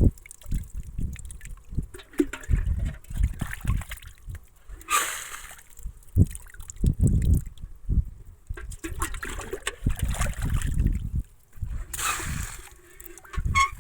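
Shallow water splashing and sloshing in irregular bursts, as people wade and search by hand for fish.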